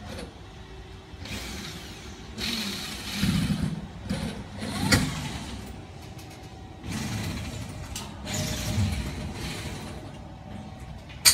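Construction-site noise: irregular swells of hiss and low rumble with scattered knocks, one sharp knock about five seconds in.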